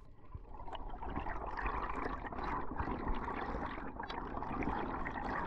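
Water rushing and bubbles crackling past an underwater camera as a freediver swims up toward the surface, growing louder over the first second and then staying steady.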